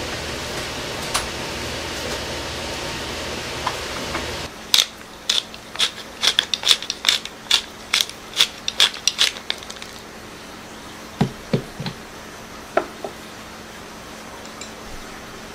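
Black pepper grinder being turned over the food: a quick run of sharp ratcheting clicks, about three a second, for some five seconds, followed a little later by a few soft knocks. Before the clicks a steady hiss runs until it cuts off sharply.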